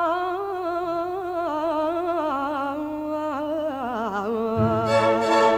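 Copla singer holding a long wordless "ay" melisma with a wide, wavering vibrato. The voice slides down in pitch about four seconds in, as the orchestral accompaniment comes in underneath.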